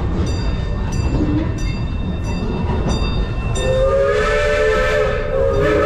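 Coal-fired steam locomotive's whistle giving one long blast of several tones at once about halfway in, then a short second blast near the end, over the steady rumble of the moving train.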